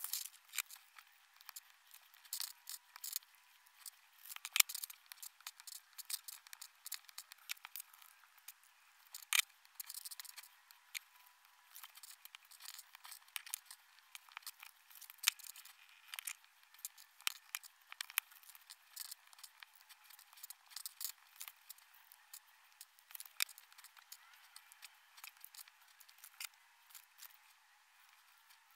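Plastic LEGO pieces clicking and rattling as they are picked from a pile and pressed together: quiet, irregular sharp clicks, a few of them louder.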